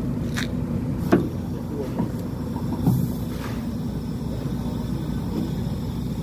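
A vehicle engine running steadily with a low hum, with a few knocks and clunks, the loudest a little over a second in.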